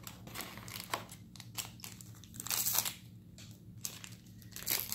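Foil trading-card booster pack being handled and opened: the wrapper crinkles and crackles in irregular bursts, loudest about halfway through and again near the end.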